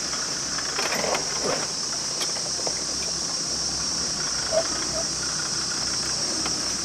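Steady high-pitched insect buzz from the bush over the low rumble of a Land Rover Discovery 2's Td5 five-cylinder turbodiesel crawling slowly up rough ground, with a few short squeaks and chirps.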